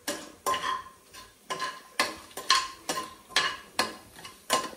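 A spoon stirring in a pressure cooker pot, scraping and clinking against the metal about twice a second, each stroke ringing briefly.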